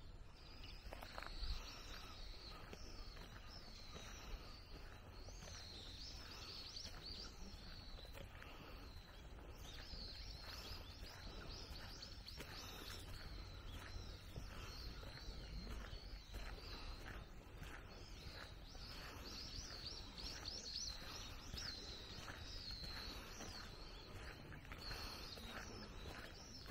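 Small birds chirping continually in high, rapid twittering calls, over faint regular footsteps on a path and a low wind rumble.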